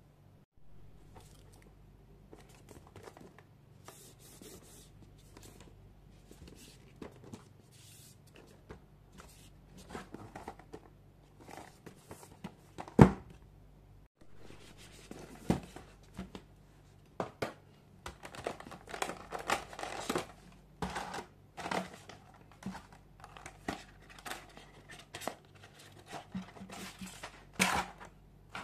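A cardboard collector's figure box being opened and unpacked by hand: scattered soft rustles, scrapes and clicks of card, plastic blister trays and a paper leaflet, with one sharper knock about halfway through.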